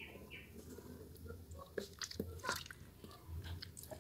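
Soaked, mushy bar soap being squeezed and crushed in wet hands: faint wet squishing with scattered crackling clicks.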